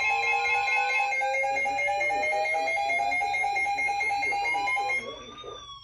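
Electronic alarm tones beeping in a rapid pulse over a siren that slowly rises in pitch. The beeping cuts off about five seconds in, as the siren reaches its peak and starts to fall.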